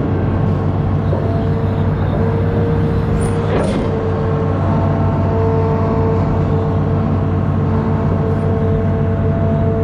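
Amphibious excavator's diesel engine running steadily under load, with a steady whine above the engine note and one brief knock about three and a half seconds in.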